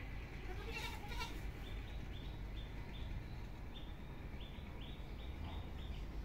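A goat bleats once about a second in, a short wavering call, followed by a run of short high chirps about three a second over a low steady background.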